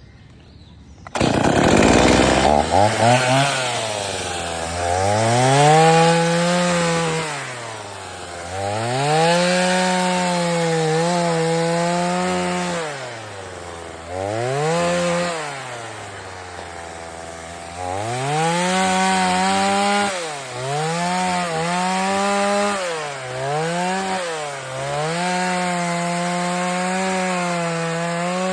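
Chainsaw engine starting up about a second in, then revved up and down repeatedly: the engine note rises and falls every second or two, with stretches held at high revs.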